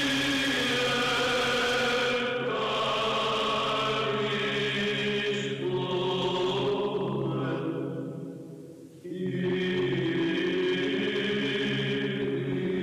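Male choir chanting in long held notes, changing phrase every few seconds. It fades almost away about eight seconds in, and a new phrase starts a second later.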